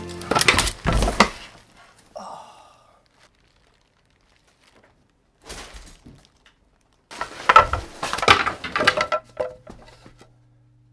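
Crashing and thudding as a person and chair tumble to the floor, with things knocking and breaking. A short burst of crashes comes about half a second in, and a longer, louder burst of crashing and breaking runs from about seven to ten seconds in. A steady low hum comes in near the end.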